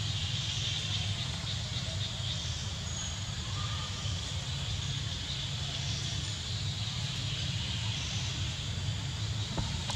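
Steady outdoor background: a continuous high insect drone over a low rumble, with a single short click near the end.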